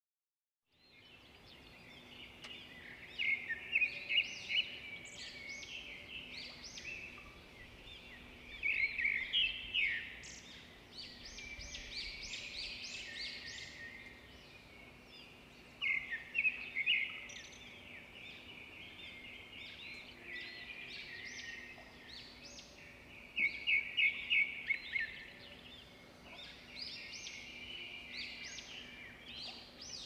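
Birds chirping and singing in short bursts of quick repeated high notes, several seconds apart, over a faint steady background hiss. The sound starts about a second in, after a moment of dead silence.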